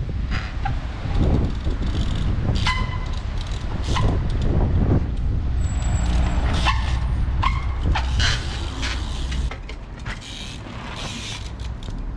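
Trials bike hopping on a brick wall edge: a series of sharp knocks as the tyres land, with a few brief squeaks, over a steady low street rumble.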